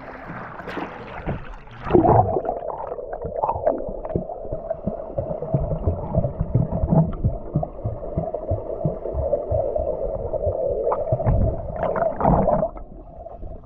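Muffled underwater gurgling and bubbling of swimming-pool water as heard with the microphone submerged, opening with a splash as it goes under. Near the end a burst of bubbles comes from a swimmer breathing out underwater.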